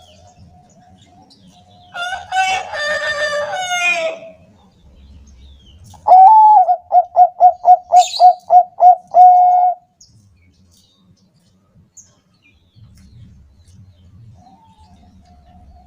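Bangkok-strain zebra doves (perkutut) singing. There are faint coos at first, then a fuller, layered call for about two seconds. After that comes a loud run of about a dozen quick, evenly spaced cooing notes, and fainter coos return near the end.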